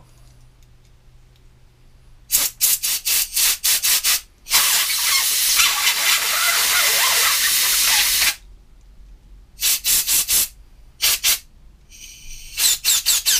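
Compressed-air blow gun blowing through the small holes of cleaned lawnmower carburetor parts to clear them: a run of short puffs, one long hiss of about four seconds, then more short puffs, the last few with a whistling tone.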